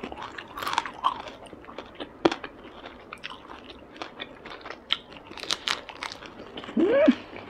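A person chewing a mouthful of Vietnamese fresh spring roll (gỏi cuốn) with crisp lettuce: crunching in many small, irregular crackles and clicks. Near the end, a short rising hum from the eater.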